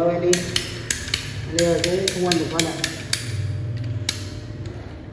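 Ratcheting PVC pipe cutter clicking as it is squeezed through a plastic pipe: a run of sharp clicks, several in quick succession around two seconds in.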